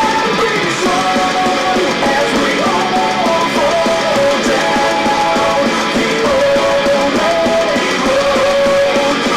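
Guitar-led rock music played through an Antec AMP SP1 portable Bluetooth speaker as a sound test, picked up by the recording microphone.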